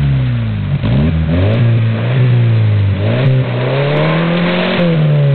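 Pickup truck engine revving hard under load, pulling to uproot a tree. The revs rise and fall repeatedly, dipping about a second in and again near three seconds, climbing, then dropping back near the end.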